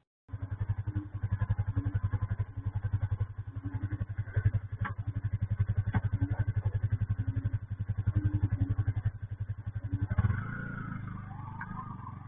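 A motorcycle engine running with a fast, even putter, picked up by a CCTV camera's microphone. The beat stops about ten seconds in, leaving a lower, steadier hum.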